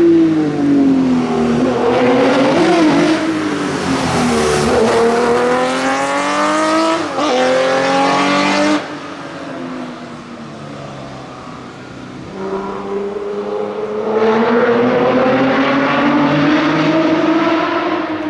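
Classic rally car engines at full throttle, the pitch climbing and dropping through gear changes. About nine seconds in the sound cuts off suddenly to a quieter engine for a few seconds, then an engine climbs again near the end.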